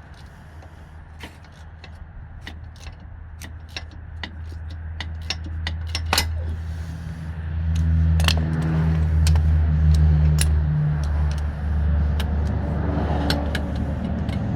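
Scattered sharp metallic clicks and clinks of hand tools during work on a steering stabilizer, over a low engine-like hum that grows louder about halfway through.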